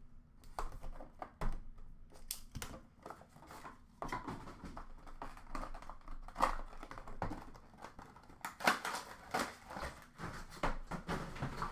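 A cardboard trading-card hobby box being opened and its contents handled: scattered clicks and taps with bursts of crinkling packaging, busiest about two-thirds of the way through.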